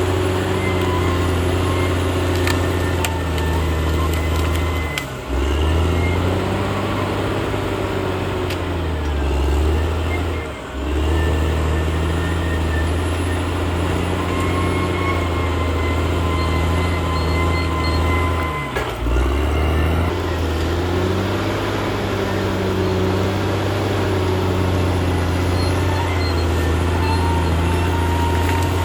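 Caterpillar D6R XL bulldozer's diesel engine running steadily under load. The engine note sags and picks back up three times, about 5, 10 and 19 seconds in.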